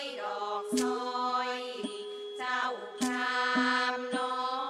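Thai classical ensemble music: a long-held, slowly shifting melody line, marked by a sharp percussion stroke about once a second.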